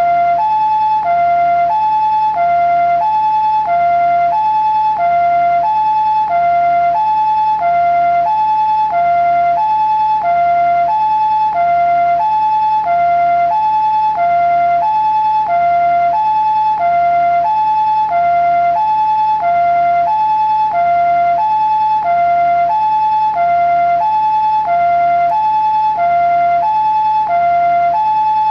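Japanese ambulance two-tone siren sounding its "pee-po" call: a high tone and a lower tone alternate evenly, about one high-low cycle every 1.3 seconds, at a steady pitch and loudness.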